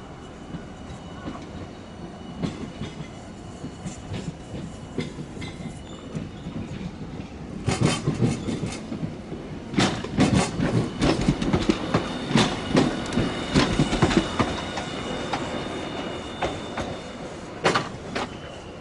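Hiroshima Electric Railway streetcar rolling past, its wheels clacking over rail joints, the knocks coming thick and loudest about halfway through. A thin high squeal from the wheels runs under the later half.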